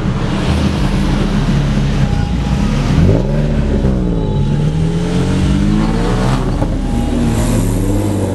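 Car engine revving up and dropping back, about twice, over a steady low engine rumble.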